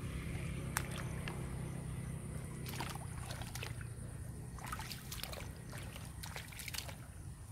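Bare feet and hands sloshing and squelching in shallow muddy water, with a few short clusters of soft splashes, over a steady low rumble.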